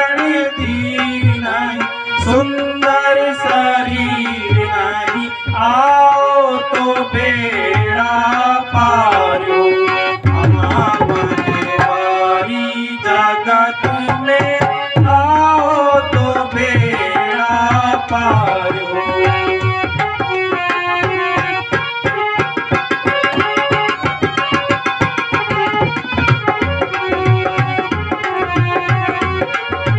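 Stage accompaniment music: a hand drum with a melody line that slides up and down in pitch. The drumming turns fast and dense about two-thirds of the way through.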